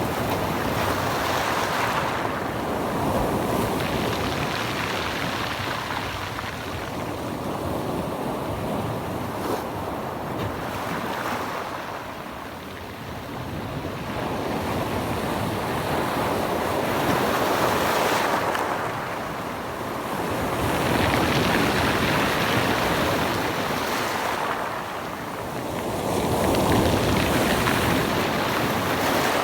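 Mediterranean Sea waves washing in, the surf swelling and easing every several seconds, with wind buffeting the microphone.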